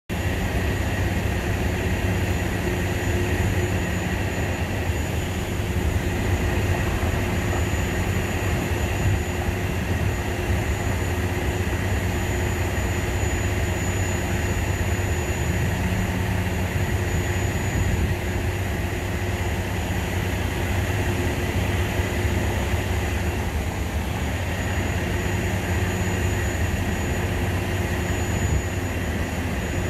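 Steady low rumble of street traffic and vehicle engines at an intersection, with a faint high steady whine over it.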